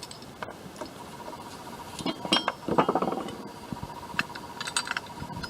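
Small metal parts clinking and tapping: bolts, nuts and a bracket being handled and taken off a small-block Chevy intake manifold, with several short ringing clinks about two to three seconds in.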